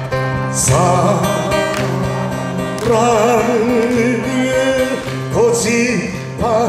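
A man singing a Korean trot song while strumming a steel-string acoustic guitar, amplified through a stage PA. His held notes carry a wide, wavering vibrato.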